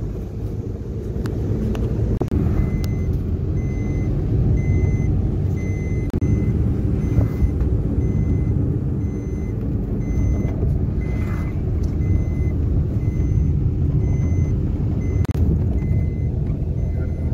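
Car running along a road, heard from inside the cabin as a steady low rumble of engine and tyres. From about three seconds in, a short electronic beep repeats about one and a half times a second.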